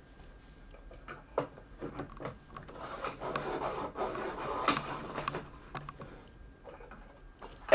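A Caran d'Ache Luminance coloured pencil being sharpened by hand: an irregular rasping and grinding as the blade shaves the wood, with scattered small clicks. A sharp knock comes near the end.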